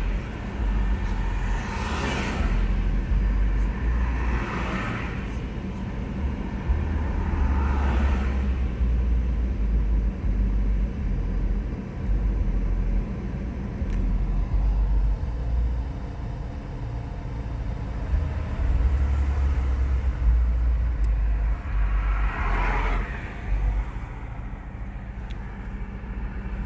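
BMW E46 320d's four-cylinder diesel idling roughly, the idle hunting up and down every few seconds. Typical of its cold-engine fault: below about 7 °C with the heater on, the idle goes erratic.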